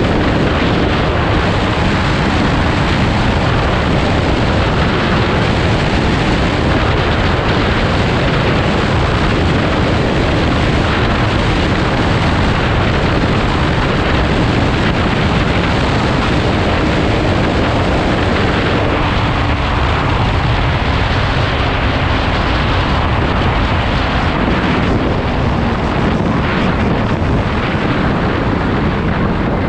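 Heavy wind noise buffeting the microphone while riding a Kawasaki Z250 motorcycle at speed, with the engine drone faintly underneath. The noise eases slightly near the end.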